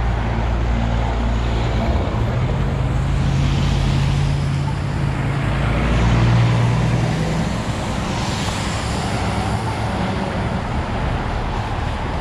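Road traffic: vehicles passing with a steady low engine hum, and tyre hiss swelling twice, about three and eight seconds in.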